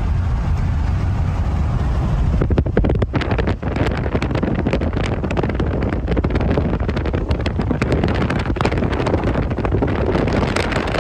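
Road noise and wind rushing inside a vehicle's cab at highway speed: a steady low rumble, with the wind rush growing louder and buffeting the microphone from about two and a half seconds in.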